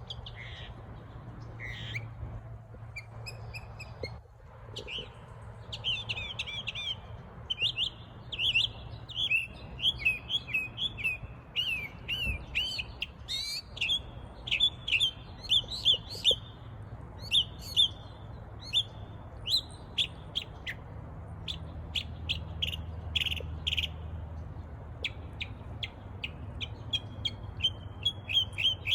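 A songbird singing a long, rapid song of high chirps and twittering trills with only short breaks, over a faint steady low hum.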